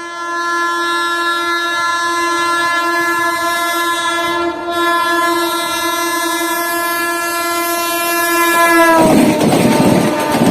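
Locomotive horn sounding one long steady blast as a train approaches at speed. About nine seconds in, the pitch drops as the locomotive passes, and the loud rushing and wheel noise of the passing train takes over.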